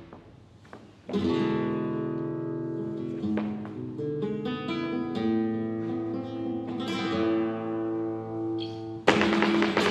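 Flamenco guitar played solo. After a brief pause, a strummed chord opens a slower passage of ringing plucked notes with occasional chord strokes. About nine seconds in it breaks into loud, fast strumming.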